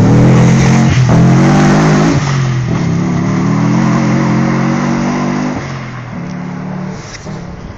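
Subaru Impreza rally car's flat-four engine pulling hard away up a gravel forest stage, its note breaking at several gear changes and fading steadily with distance.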